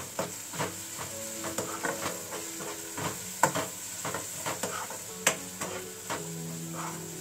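Spatula stirring and scraping vegetables frying in a non-stick kadhai, over a steady sizzle, with sharp knocks of the spatula against the pan, the loudest about three and a half and five seconds in.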